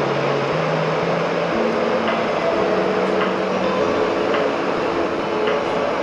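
Steady rushing roar of an MSR PocketRocket 2 canister stove burner running with its flame lit, under soft background music of slow, sustained notes.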